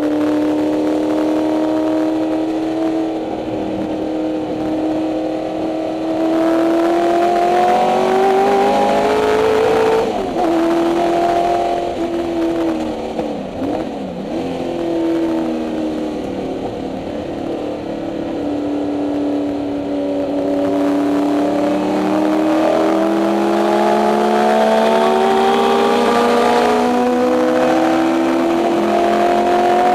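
1964 Ford Mustang race car's 289 Windsor V8 heard from inside the cabin under hard racing load: the engine note climbs under acceleration, falls steeply about ten seconds in and again around twenty seconds in, then climbs steadily once more with a gear change near the end.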